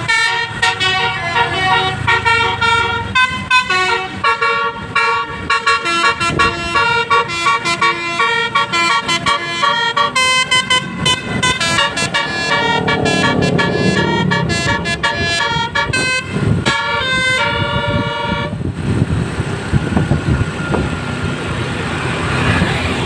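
Bus 'telolet' basuri horn, a multi-trumpet air horn playing a long tune of tooting notes that change pitch in steps. About 18 seconds in the horn stops, leaving the bus engine and road noise.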